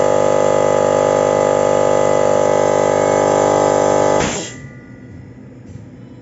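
Motomil 24-litre air compressor running with a steady, dense hum. About four seconds in it cuts off with a short burst of air as the tank reaches its cut-off pressure, leaving only faint noise.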